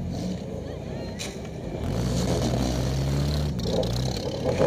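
Demolition derby car's engine running, heard from inside the cabin, its note rising and holding higher about two seconds in as it picks up revs. There is a short thump near the end.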